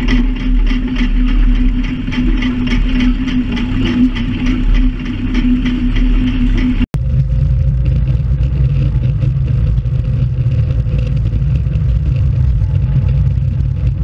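Cat D2 crawler's diesel engine running under load while it pulls a drag plough through the soil, with a steady hum and a regular rhythmic clatter. About seven seconds in, the sound cuts off abruptly and gives way to a deeper, steadier engine rumble.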